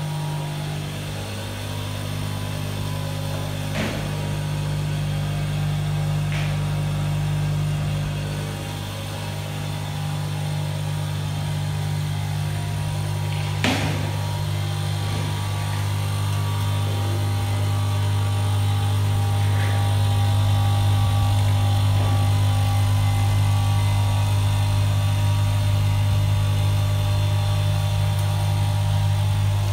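Automatic nylon cable tie machine running: its vibratory bowl feeder hums steadily, with a few sharp mechanical clicks from the machine, the loudest about halfway through. The hum grows a little louder in the second half.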